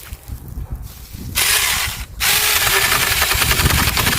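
Saker 20-volt battery mini chainsaw switched on about a second in with a loud buzzing whir. It cuts out for a moment, starts again and runs steadily while cutting wood.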